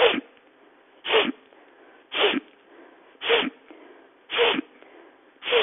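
A woman's forceful inhalations through the nose, six sharp sniffs about a second apart, in a breathing exercise of strong nasal in-breaths with passive out-breaths.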